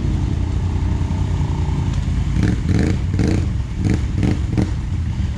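ATV engine running with a loud, steady low rumble, broken about halfway through by a quick run of about six short revs.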